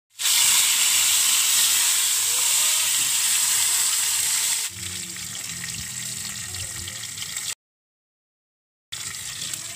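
Tilapia pieces frying in hot oil in a metal pan, a steady loud sizzle. It drops abruptly to a quieter sizzle with some low rumble about halfway through, then cuts out completely for about a second before the quieter sizzle returns.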